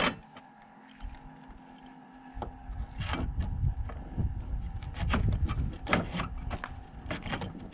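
A faint steady hum, then from about two and a half seconds in, a run of irregular knocks, scrapes and rattles as parts and tools are handled and rummaged through.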